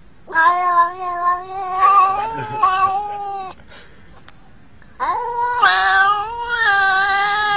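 Black-and-white domestic cat giving two long, drawn-out meows, the first lasting about three seconds and the second starting about five seconds in.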